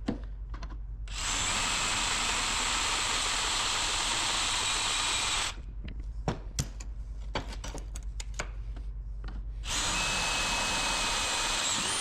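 A handheld power tool runs steadily twice: once for about four seconds and again for about two seconds near the end. Clicks and knocks of handling come between the runs.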